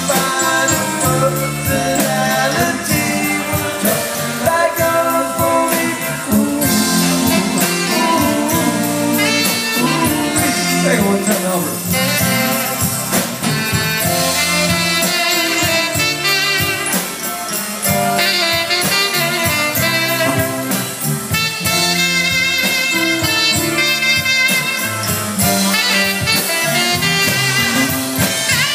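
Live band playing: a saxophone and horns over drums, bass and electric guitar.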